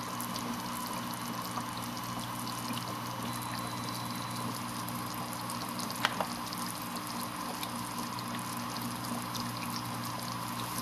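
Hydrogen electrolysis cell fizzing steadily with gas bubbles under PWM current, with a steady electrical tone from the cell set by the PWM switching frequency, here about 1000 Hz. A sharp click about six seconds in.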